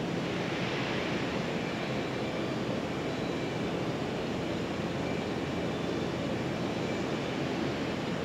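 Steady rumble of an electric train approaching in the distance along the rails.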